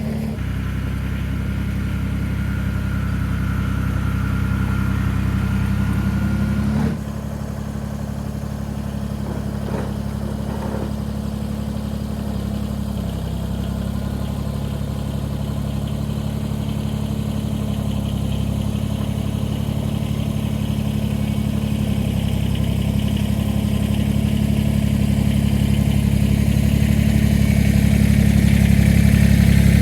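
Kubota BX23S compact tractor's three-cylinder diesel engine running steadily. It drops in level suddenly about seven seconds in, then grows gradually louder toward the end.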